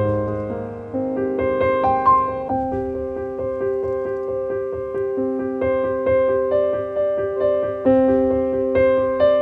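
Background piano music: gentle notes played one after another in a steady, unhurried pattern, each ringing and fading.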